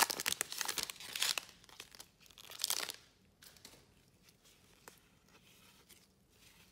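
Foil trading-card pack wrapper torn open and crinkled by hand for about three seconds, with the loudest crackle near the start and again just before it stops.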